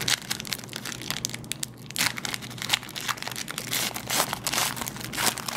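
Foil wrapper of a Panini Marquee basketball card pack being torn open and crinkled by hand: irregular crackling and rustling.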